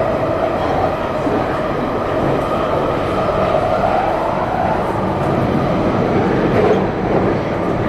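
A London Underground train running, heard from inside the carriage: a steady, loud rumble of wheels and running gear with a constant hum.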